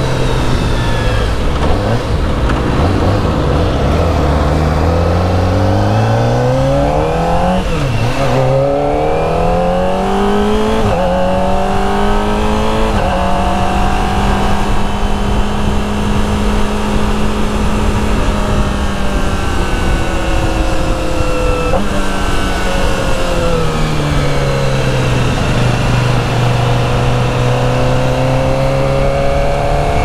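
Kawasaki ZX-25R's inline-four engine through its stock exhaust, under way: the pitch climbs and drops back sharply about 8 and 11 seconds in, as with upshifts, then holds a steady cruise. Past the middle the pitch falls as the bike slows, runs low and steady, and starts climbing again near the end.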